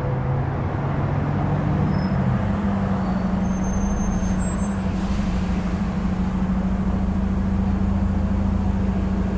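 Steady rush of freeway traffic, with a low engine hum that steps up in pitch about two seconds in and then holds. A few brief high-pitched squeals come a few seconds in.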